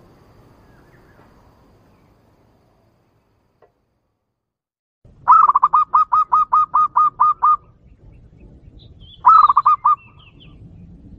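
Zebra dove calling: a fast run of about a dozen clear, sharp cooing notes, then after a pause a shorter run of about five. This perkutut call is used as a lure because it provokes male zebra doves.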